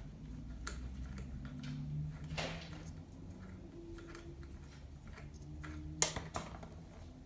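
Scattered light clicks and knocks of an adjustable wrench on the metal parts of a walk-behind lawn mower as a stuck bolt is worked loose. There is a short scrape about two and a half seconds in and a sharp click about six seconds in, over a low steady hum.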